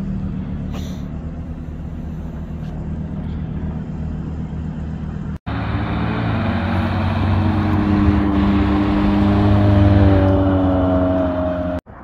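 Sports-car engines: a steady low engine rumble from the parked supercars, then after a cut a red Ferrari's engine pulling away past the camera, its pitch climbing and getting louder to a peak near the end.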